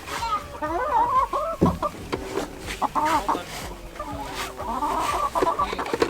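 Several hens clucking and calling over one another, with a single thump about a second and a half in.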